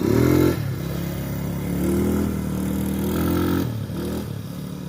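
ATV engine revving, its pitch climbing sharply at the start, then running on and picking up twice more as it is ridden.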